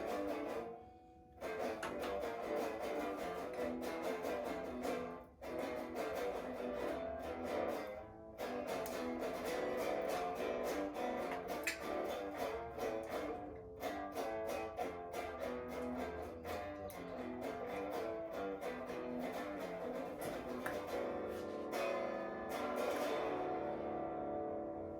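Guitar being played, a steady run of picked and strummed notes with a few short breaks, stopping near the end.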